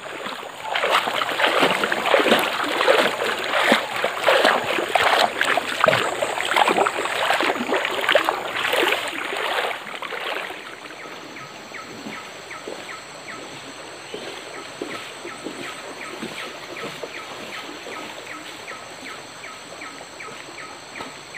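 Water splashing and sloshing in a forest stream for about the first ten seconds. Then it drops to quieter forest ambience: a steady high hum and a faint short call repeating about twice a second.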